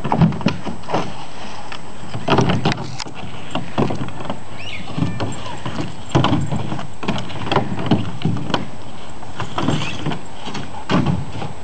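A hard-plastic kiddie pool being nosed, shoved and dragged across grass and dirt by a Labrador, giving irregular plastic knocks and scrapes.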